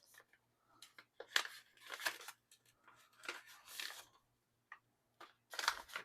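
Packaging of a photo-card parcel handled and opened: faint, irregular rustling and crinkling of paper and plastic wrapping in short bursts, the last and loudest near the end.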